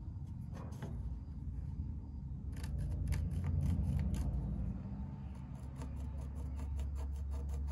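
Pencil scratching on a metal sheave part, a quick run of short, sharp scratchy strokes marking a T for top, over a steady low rumble.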